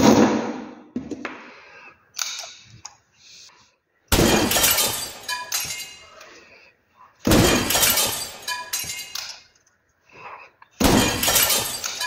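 Inertia fuel cut-off switch banged down hard four times, each a sharp crash with a short rattling, ringing tail, jolting the switch so that it trips and cuts the circuit. Fainter knocks and clicks come between the crashes as the switch is handled and reset.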